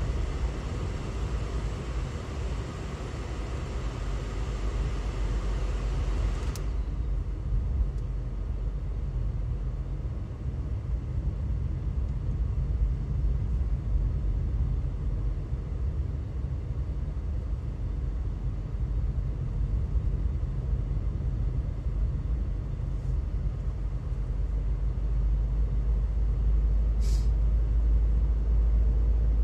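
Steady low road and engine rumble inside a moving car's cabin. A higher hiss above it cuts off abruptly about six and a half seconds in, and a brief faint click comes near the end.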